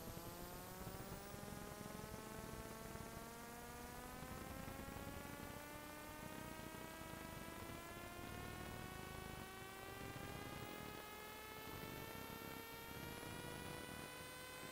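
Faint buzzing hum made of several tones together, slowly climbing in pitch, over a steady hiss. A thin high whistle drops in pitch near the end.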